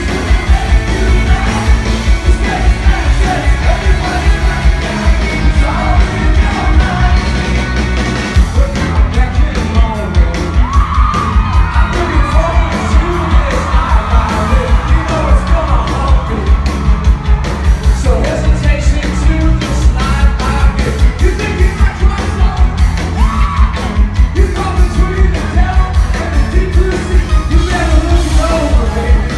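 Live rock band playing loud, with lead vocals over a strong, steady bass and drum beat, and voices yelling and singing along.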